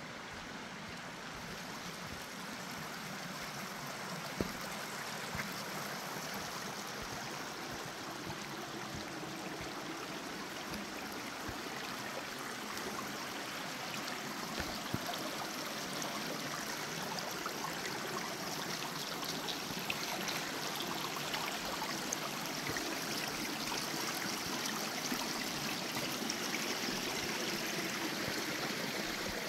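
Rushing water of Naramata Creek, a steady hiss that grows gradually louder, with a few brief clicks.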